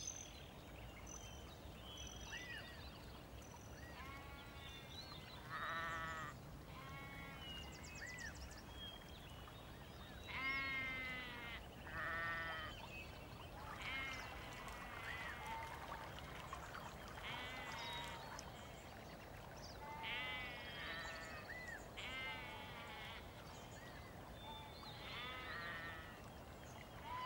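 Sheep bleating repeatedly in the distance: a series of short calls every second or few seconds, each rising and falling in pitch, some louder than others, over faint steady outdoor background noise.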